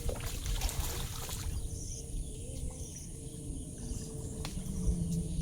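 Outdoor background noise, mostly a steady low rumble, with a few faint clicks.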